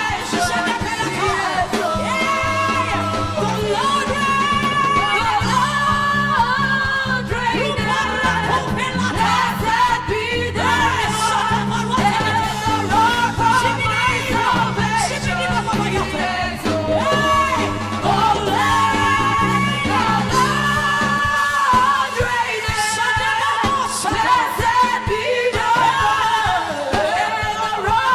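A woman singing a gospel song with long held and gliding notes, over band accompaniment with a steady bass line.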